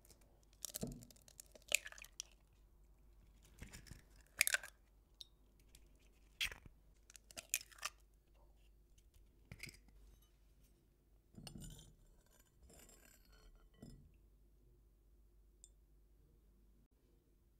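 Sharp taps and clinks of eggs being cracked into a glass mixing bowl, several separate knocks. Then a metal spoon scrapes and clinks against the glass as the yolks are lifted out.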